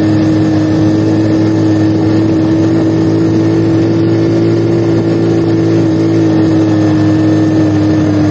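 Honda Astrea Legenda underbone motorcycle's four-stroke single-cylinder engine running at steady cruising speed, heard from the rider's seat, with a steady tone that drops slightly in pitch about six seconds in.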